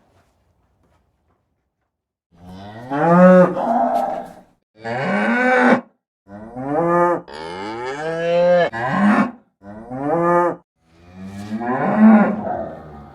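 Domestic cattle mooing: about six loud, drawn-out moos in quick succession, each sliding up in pitch, after a silent first two seconds.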